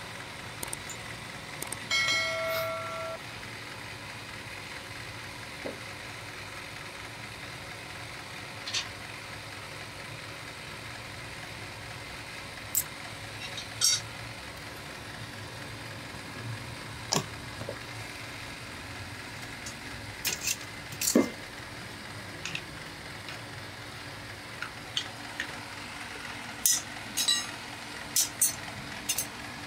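Pattern and sand-mould pieces being handled: scattered light clicks and knocks, with one ringing metal clink about two seconds in that sounds for about a second. A steady low hum lies underneath.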